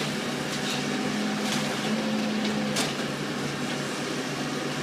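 A steady machine-like hum under a broad rushing noise, with a few faint clicks.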